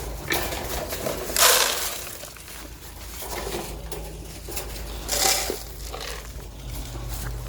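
Goat feed being handled and poured: rustling and scraping of grain, with two louder pouring bursts about a second and a half in and about five seconds in.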